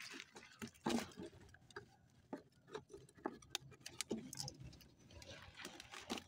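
Scattered light clicks, taps and rustles as a hand works at a netted fish trap among water hyacinth leaves.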